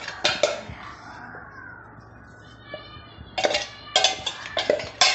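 A metal spoon scraping and knocking inside a stainless steel mixer-grinder jar, digging out ground chutney powder that has caked at the bottom. A short scrape about half a second in, then a quieter stretch, then repeated rapid scrapes and knocks through the last two seconds.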